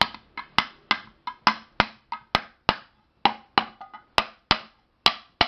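A hammer striking a wooden block laid on the upturned bottom of a pressure cooker, sharp knocks about three a second with two short pauses. The blows are flattening the cooker's bulged base.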